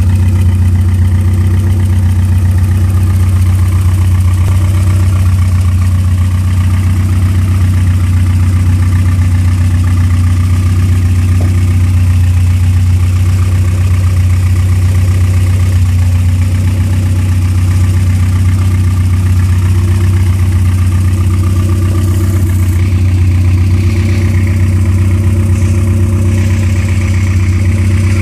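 Honda B16A 1.6-litre DOHC VTEC inline-four idling steadily, a freshly built engine being broken in.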